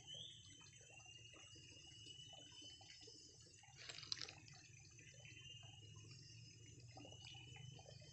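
Faint water dripping and trickling, with small scattered patters and a thin, steady high whistle that comes and goes. A brief louder patter comes about four seconds in.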